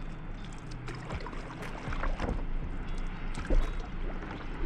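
Stand-up paddle board being paddled on a lake: paddle strokes pulling through the water with splashes and drips, and water lapping against the board, over a low rumble.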